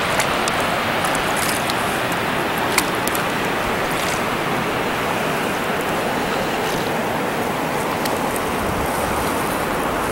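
Steady rushing hiss of water along the hull of a sea kayak being paddled, with a few faint drips and small splashes.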